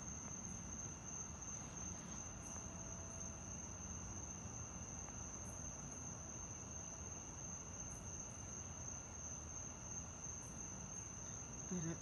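Night insect chorus: a steady, unbroken high-pitched trill over a faint low background hiss.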